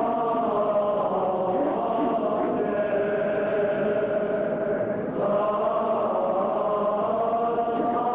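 Armenian Apostolic liturgical chant: voices singing slow, long-held notes, with a brief dip about five seconds in before a new note begins.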